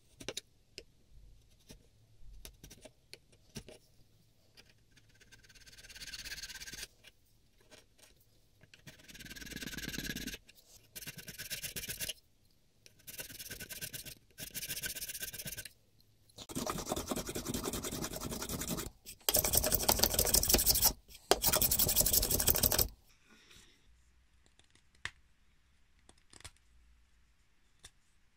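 Steel chisel paring boxwood inside a mortise in a hand-plane body: a few light taps and scrapes, then about eight separate scraping cuts, each a second or two long. The last two cuts are the loudest.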